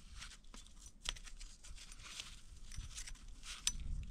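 Nitrile-gloved hands working a piston ring into the groove of a 6.4 Powerstroke diesel piston: rustling and crinkling handling noise with a couple of sharp metallic clicks.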